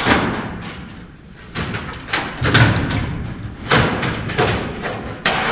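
Long sheet-metal ceiling panel banging and rattling as it is pushed and knocked into place overhead: a string of irregular thumps and clanks, the loudest about two and a half seconds in.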